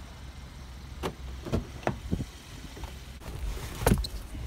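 A car door opened from its outside handle, then a few clicks and knocks as someone climbs into the seat. The loudest knock comes near the end, over a low steady rumble.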